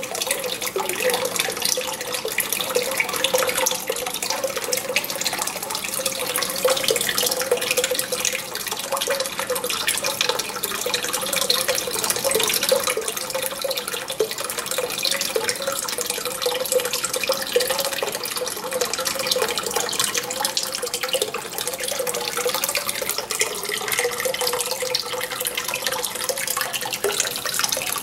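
Water pouring steadily into a small goldfish pond, splashing and trickling without a break, with a wavering mid-pitched tone running under the splash.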